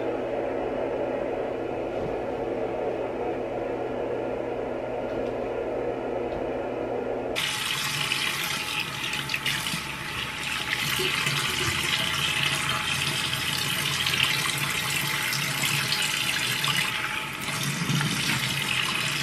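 A steady droning hum of several held tones for about the first seven seconds, then a bathroom faucet running into the sink, with water splashed onto the face by hand.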